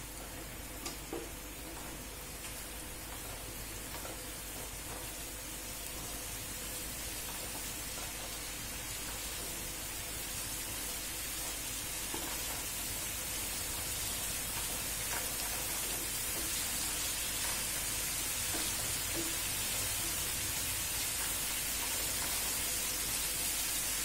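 Onions, capsicum and ginger-garlic paste sizzling in oil in a frying pan: a steady hiss that grows gradually louder, with two faint knocks about a second in.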